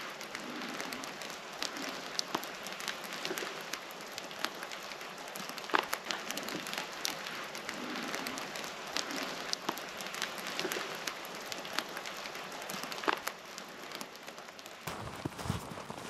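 Drops pattering irregularly onto the forest floor and branches in a wet, snow-dusted pine forest: scattered sharp ticks over a soft steady hiss. Near the end the sound changes to footsteps on the forest floor.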